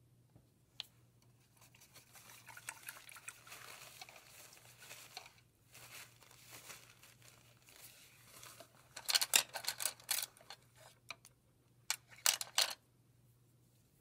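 Soft, scratchy paintbrush strokes on canvas for a few seconds. Then come two short clusters of louder sharp rattling and scraping handling noises, about nine and twelve seconds in, over a faint steady low hum.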